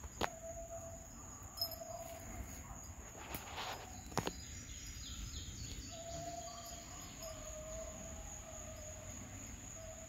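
Hounds trailing a rabbit, baying faintly in the distance in a series of long drawn-out calls, over a steady high insect drone and breeze rumble. A few sharp clicks stand out near the start and about four seconds in.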